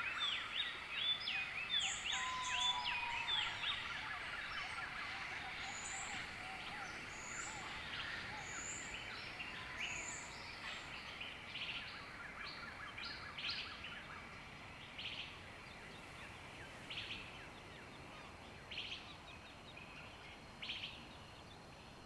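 Wild birds calling and chirping in tropical forest: a busy chorus of rapidly repeated high chirps and a few whistled notes at first, thinning out to scattered single calls as it gradually grows quieter.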